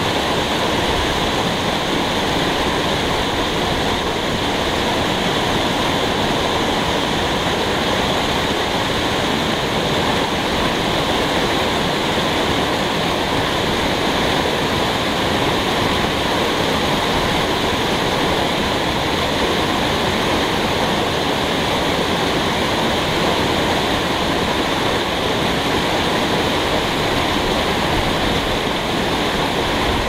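Mountain waterfall: water pouring down a high rock face and over boulders, a steady, unbroken rush of falling water.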